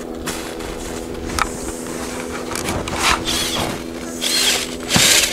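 Hand ice auger being cranked through lake ice: its blades scrape and crunch in uneven strokes, with a few sharper grinding bursts, the loudest near the end. A steady low hum runs underneath.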